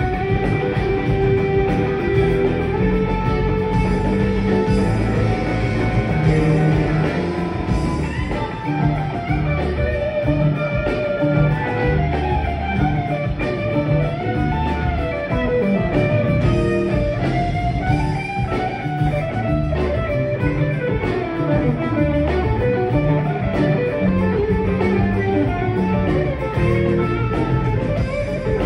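Live rock band playing an instrumental passage: guitars carry a wandering melodic line over a steady bass and drum groove.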